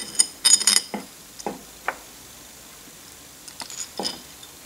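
Small screws and parts clicking and clinking against a metal gantry plate as they are handled and fitted into its holes: a quick cluster of sharp clicks about half a second in, a few single clicks after it, and another handful near the end.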